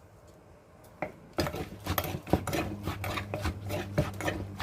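Salad ingredients being stirred and scraped round a mortar with a pestle and spoon, a quick run of rasping and clattering strokes that starts about a second and a half in.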